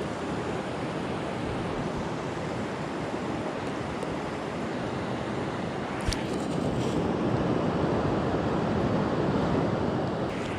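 Steady rush of a fast-flowing mountain stream, with one brief click about six seconds in.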